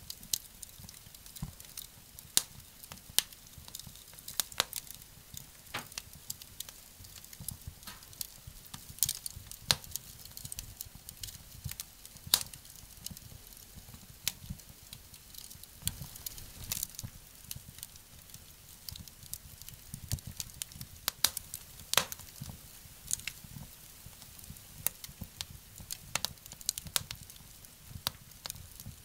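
Wood fire crackling in a small wood-burning stove, with irregular sharp snaps and pops.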